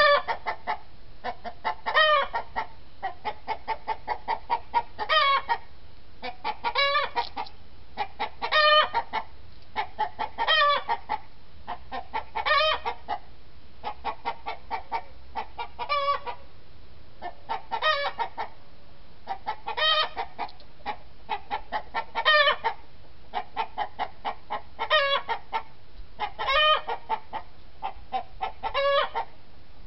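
Chickens in a coop clucking rapidly, with a loud drawn-out squawk about every two seconds.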